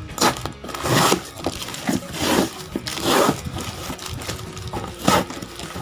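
Parcel packaging being handled and opened: about five short rustling, scraping crinkles of cardboard and plastic, roughly a second apart.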